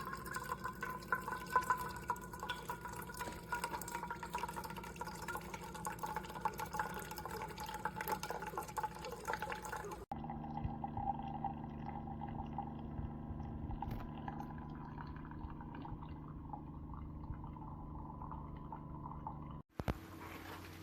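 Liquid pouring into a container, with a faint tone that slowly falls. The sound breaks off abruptly about halfway through and again near the end, where different takes are cut together.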